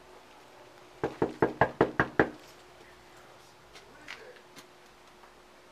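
Knuckles knocking on a front door: a quick run of about six sharp knocks, starting about a second in, followed by a couple of faint clicks.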